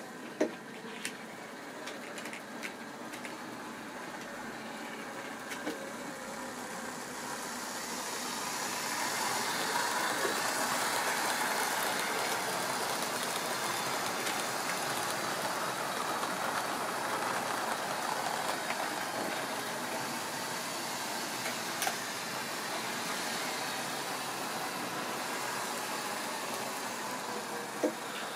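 Tri-ang or Lima model trains running on the layout's track: a steady whirr of motors and wheels on rail that grows louder about a third of the way in as a train passes close by, with a few sharp clicks.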